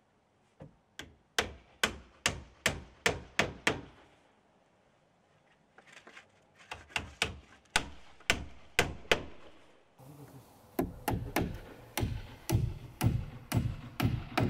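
Hammer driving nails through larch shingles into wooden roof battens: three runs of quick blows, about two to three a second, the middle run starting with a few lighter taps.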